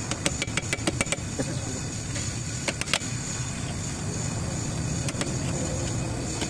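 Sharp metallic clicks of a steel tool working at a brake caliper's pad-retaining pin: several in the first second, two around three seconds in and a few more about five seconds in, over a steady low background rumble.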